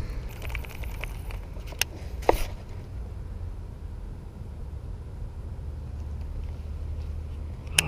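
Low, steady wind rumble on the microphone, with two sharp clicks about two seconds in as a baitcasting rod and reel cast a topwater popper.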